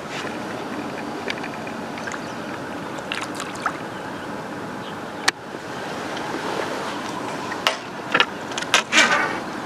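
Steady outdoor noise, like running water or wind on the microphone, with a sharp click about five seconds in and a short run of clicks and rattles near the end.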